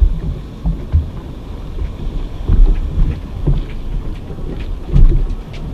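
Wind buffeting the microphone and choppy sea water slapping a drifting jet ski, heard as an uneven low rumble with irregular thumps a second or so apart.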